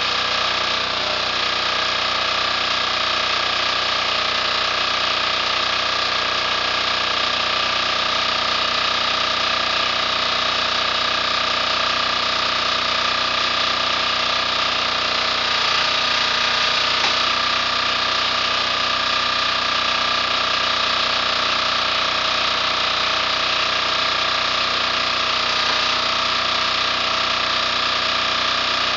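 Single-cylinder KOOP diesel engine of a log splitter running steadily at a constant speed, driving the hydraulic pump.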